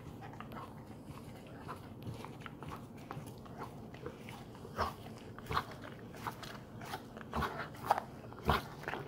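Bernese mountain dog chewing a tennis ball, with irregular crunching bites and clicks of teeth on the ball that grow sharper and louder about halfway through.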